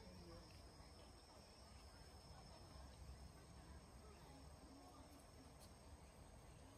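Near silence: faint outdoor ambience with a steady, high-pitched insect trill, like crickets, that fades a little after the first second.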